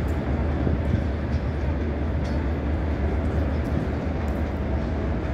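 DDB1 diesel multiple unit running as it moves away along the platform: a steady low diesel drone under even rolling noise from the train.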